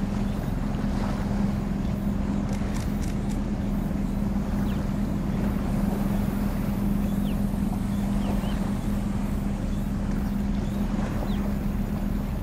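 A vessel's engine running steadily: a constant low hum with an even rumble beneath it.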